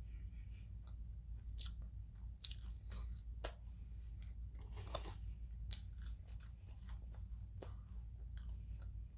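A person chewing and eating French fries close to the microphone: irregular crunching and mouth clicks, with one sharper click about three and a half seconds in, over a steady low hum.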